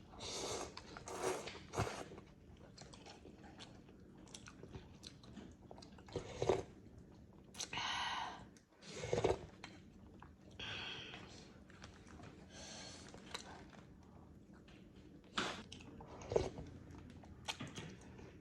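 Close-up chewing and biting sounds of someone eating, with crunches and wet mouth noises coming in irregular bursts every second or two.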